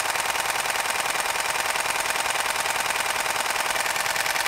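A Canon EOS 7D Mark II's shutter and mirror fire in a continuous high-speed burst, an even rattle of about ten shots a second. This is the camera's top continuous shooting speed.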